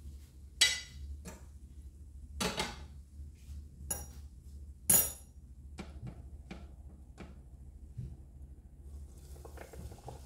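Metal fork clinking and knocking against dishes, four sharp clinks in the first five seconds with a few lighter taps after. Near the end a soft sizzle builds as a coated potato cutlet goes into the hot frying oil.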